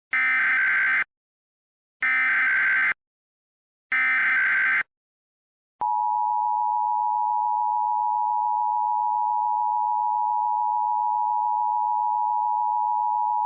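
Emergency Alert System alert opening: three one-second bursts of SAME digital header tones, then, about six seconds in, the steady two-tone EAS attention signal (853 and 960 Hz together) that announces an emergency broadcast.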